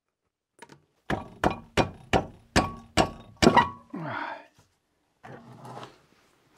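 A car road wheel being knocked loose from its hub: about eight heavy thunks, a little under three a second, then a short scrape as the wheel comes away.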